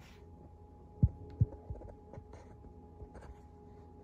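A low steady hum, with two dull low thumps about a second in, close together, and a fainter third just after.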